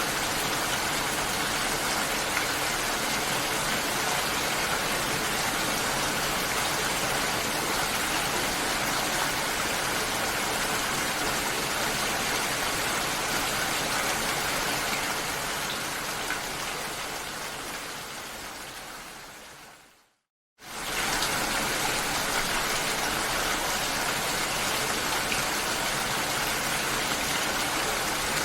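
Rain falling steadily, an even hiss. About two-thirds of the way through it fades away over several seconds to a brief moment of silence, then comes back at full level almost at once.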